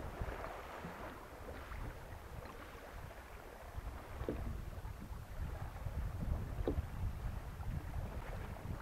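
Wind buffeting the camera microphone on a sailing canoe under way, a gusty low rumble over water splashing and rushing along the hull, with a couple of sharper splashes in the second half.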